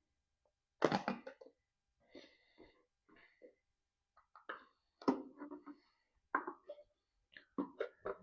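Sharp knocks and clanks of tools and metal parts as the valve covers are worked off a Honda J35Y5 V6 engine. They come one at a time, the loudest about a second in, with lighter clatter between and a few more knocks in the second half.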